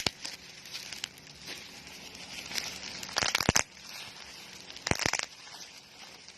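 Plastic packaging crinkling and crackling as it is handled and unwrapped, with two louder bursts of crackling about three and five seconds in.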